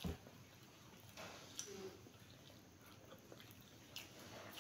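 Faint sounds of people chewing and biting pizza, with small scattered clicks and rustles and a soft thump right at the start.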